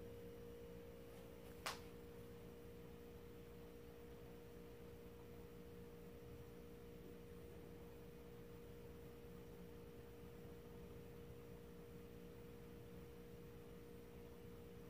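Near silence: faint steady electrical-sounding hum of room tone, with one short click about two seconds in.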